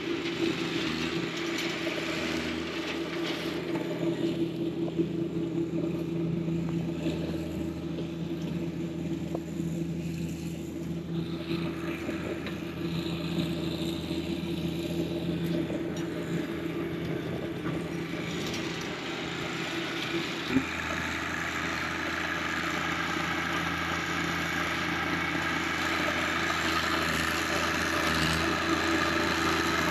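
John Deere 1025R compact tractor's diesel engine running at a steady speed with the flail mower turning, a constant hum that grows a little stronger in its low end past the middle.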